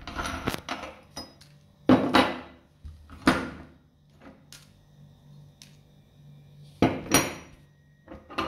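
Hard candy gumballs clattering and cracking against the metal of a meat grinder, in about five separate sharp bursts with pauses of a second or more between them.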